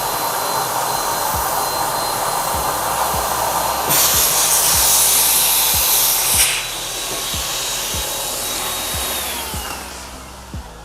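Electric air pump blowing air into a large reusable balloon: a steady rush of air with a high motor whine. It gets louder for about two and a half seconds from about four seconds in, then the whine drops in pitch and the sound fades as the pump winds down near the end.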